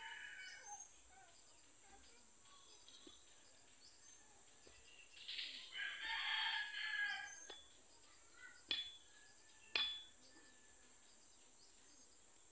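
A rooster crows: the end of one crow at the start, then a full crow of about two seconds around the middle. Shortly after come a few sharp knocks, the last and loudest about a second after the second.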